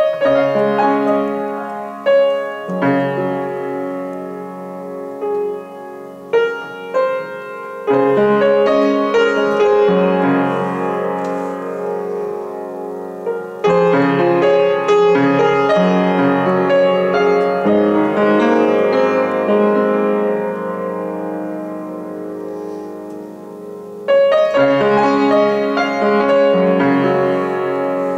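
Upright piano played solo: full chords struck every few seconds and left to ring and fade, with single notes moving over them.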